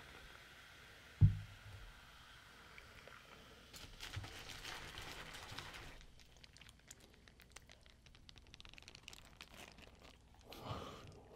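A plastic bottle set down on a table with one sharp thump about a second in, then a paper burger wrapper crinkling for a couple of seconds as a cheeseburger is unwrapped, with faint rustles after it and a short bite sound near the end.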